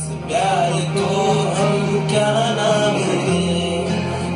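A man singing into a microphone over a karaoke backing track: a slow, wavering vocal line over steady held low chords that shift about three seconds in.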